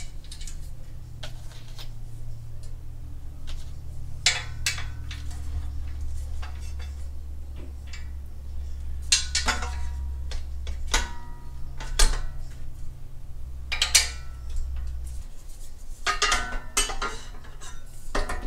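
Steel parts of a folding welding table clinking and knocking as bolts, washers and legs are handled and fitted, with scattered sharp metallic clanks, some ringing briefly. A steady low hum underneath stops near the end.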